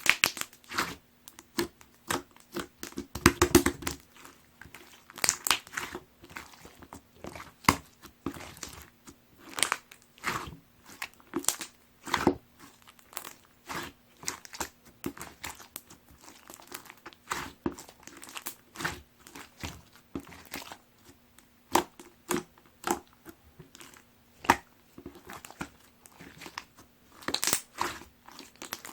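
Clear slime mixed with chopped plastic heart-straw pieces being squished and pressed, giving irregular crunchy crackles and clicks.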